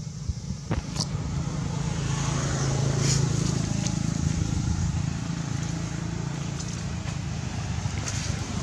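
Low rumble of a passing motor vehicle, swelling a few seconds in and easing off, with a few faint clicks.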